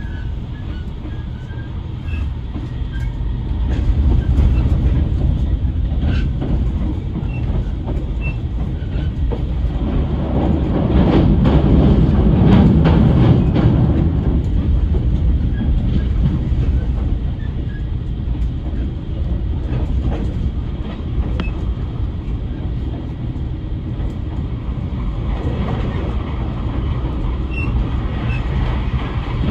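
A train running on the rails: a steady low rumble of wheels and running gear with faint clicks, swelling louder for a few seconds around the middle.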